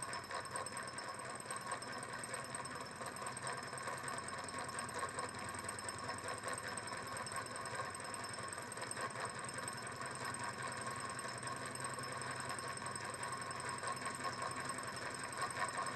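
Small candle-heated lamina flow engine, a Stirling-like thermoacoustic engine with a graphite piston in a Pyrex test tube and a steel flywheel, running steadily with a fast, even mechanical ticking. It is gradually speeding up from about 550 to about 670 rpm.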